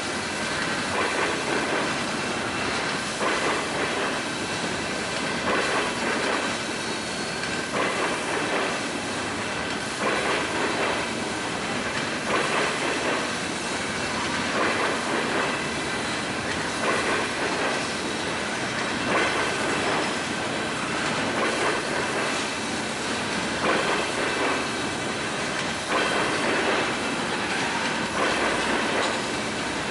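Train rolling along the track, its wheels clattering over the rail joints in a repeated clickety-clack, with faint high squealing from the wheels on the rails.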